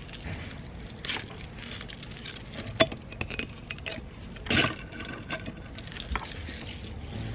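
Handling sounds of a straw being pulled from a clear plastic case and slid into a stainless-steel tumbler: light plastic clicks and rustling, with one sharp click a little under three seconds in and a louder scrape about four and a half seconds in.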